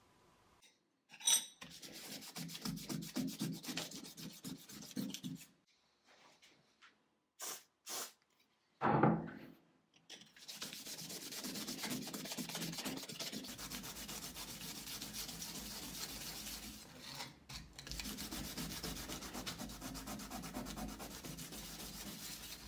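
Brass type plate rubbed back and forth over a flat metal plate with abrasive grit, being lapped flat: fast, even scratchy strokes. A few seconds of rubbing, a pause with a couple of short knocks, then steady rubbing from about ten seconds in.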